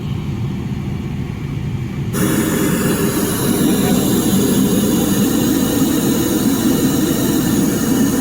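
A heavy engine running steadily with a low rumble. About two seconds in it suddenly turns louder and hissier, then holds steady.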